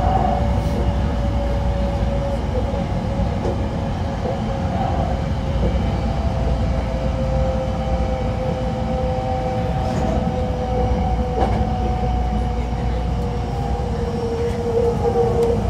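Hankyu 9000 series electric train running, heard from on board: a steady rumble of wheels on rail under the whine of its Toshiba IGBT inverter and traction motors, the whine's pitch sinking slowly as the train eases off speed. A couple of faint clicks are heard partway through.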